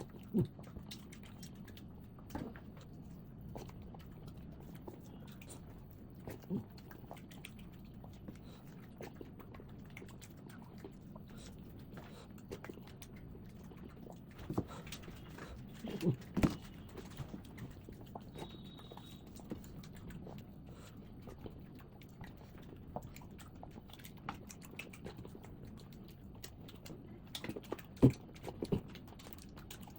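Close-miked eating sounds: soft chewing and wet mouth clicks as someone eats khichuri and chicken, with a few louder thuds near the middle and near the end.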